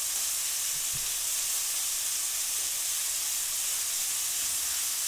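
Chicken breasts and chopped green onions sizzling steadily in hot olive oil in a skillet.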